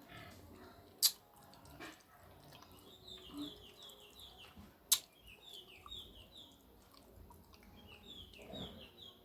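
A songbird calling in repeated runs of short, quick descending chirps, three runs in all. Two sharp clicks, about a second in and near the middle, are the loudest sounds.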